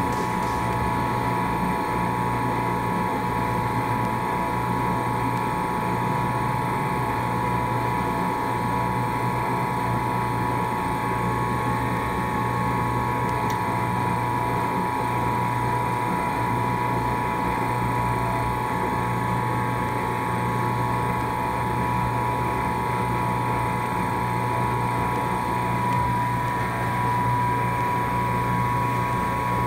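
Electric dough mixer running with a steady motor hum as it churns buckwheat flour for soba noodles.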